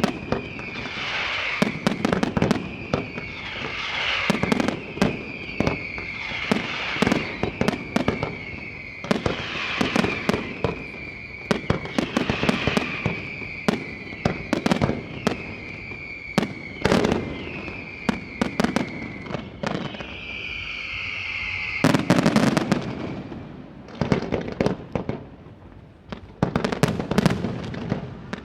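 Aerial fireworks display: a run of shells, each with a whistle falling in pitch, about one every second and a half, among many sharp bangs. About 22 seconds in, a dense flurry of loud bangs breaks out, followed by further scattered bangs.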